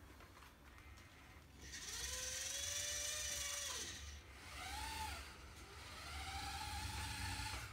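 Carson H40D radio-controlled forklift's small electric drive motor and gears whining as it turns and drives away. The pitch rises and falls in three stretches, the longest and loudest in the middle.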